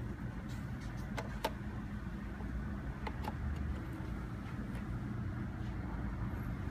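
A few light clicks and taps of a clear plastic clamshell lid and black plastic tray being handled and pressed together, about six in all, over a steady low background rumble.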